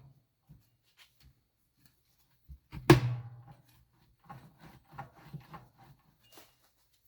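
Engine parts and hand tools being handled during an engine rebuild: scattered light clicks, one loud sharp knock about three seconds in that rings briefly, then a quick run of lighter taps and clinks.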